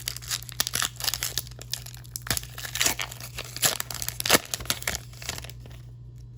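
Foil wrapper of a Pokémon trading card booster pack crinkling and tearing as it is ripped open, a dense crackle that dies away about five seconds in.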